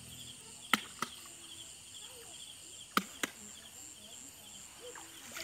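Night insects chirping steadily in a repeating pulse, with two pairs of sharp clicks, one about a second in and one about three seconds in, from the handling of a bamboo hook line being re-baited at the water's edge.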